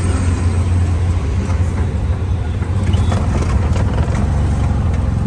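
Auto-rickshaw engine running with a steady low drone, heard from the open passenger seat, with road noise as it drives along.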